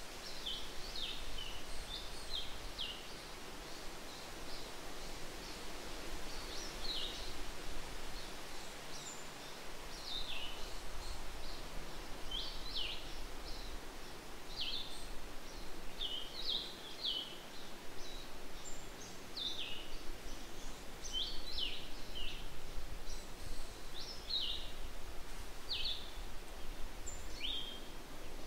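Woodland birds giving short, high, downward-slurred chirps again and again, over a steady background hiss of forest ambience.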